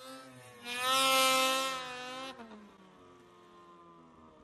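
2013 Arctic Cat M800 snowmobile's two-stroke twin engine buzzing at high revs in deep powder for about a second and a half, then dropping off suddenly and winding down faintly, its pitch falling steadily.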